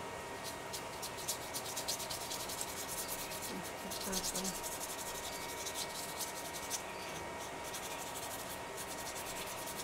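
Paintbrush bristles stroking paint across paper, a quick run of short scratchy brushing strokes.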